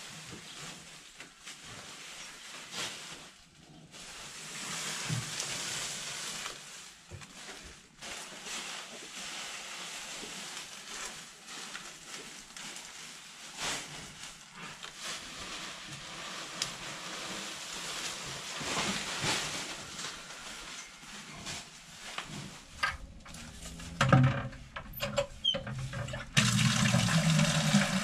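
Dry corn-stalk bedding rustling and crackling as it is pulled apart and moved by hand. Near the end, water runs steadily and loudly from a pipe into a plastic bucket.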